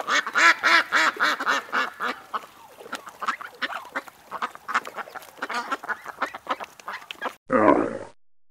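Mallard ducks quacking: a quick run of loud quacks, about four a second, then scattered quacks. Near the end a Bactrian camel gives one short, low grunt.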